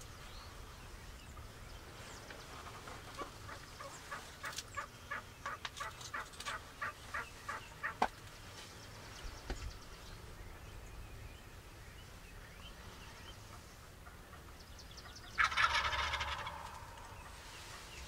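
Wild turkey gobblers gobbling. About 4 to 8 seconds in there is a run of a dozen or so short, evenly spaced call notes, a few a second. A loud, rattling gobble comes about three-quarters of the way through and lasts about a second and a half.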